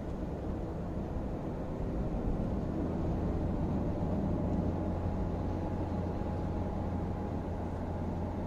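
Steady road and engine noise heard inside a moving car's cabin: a low drone that grows a little louder about two seconds in.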